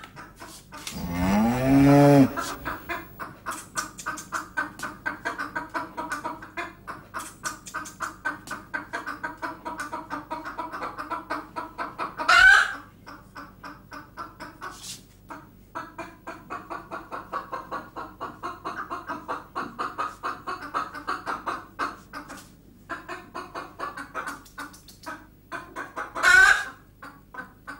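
Chickens clucking in a fast, steady run of short calls. A louder drawn-out call rises and falls about a second in, and sharp squawks stand out near the middle and near the end.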